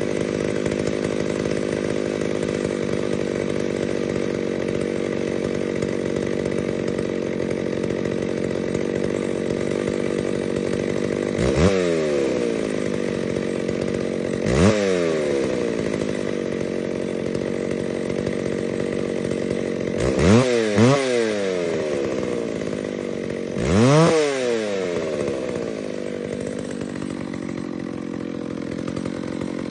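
A 60cc-class two-stroke chainsaw running steadily at a low speed. It is revved up and back down in quick blips: once about a third of the way in, again a few seconds later, twice in quick succession about two-thirds in, and once more near the end.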